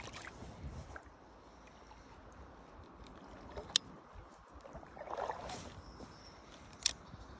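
Ultralight spinning rod and reel being handled for a cast: two sharp clicks, one near the middle and one near the end, with a brief swish between them, over faint flowing river water.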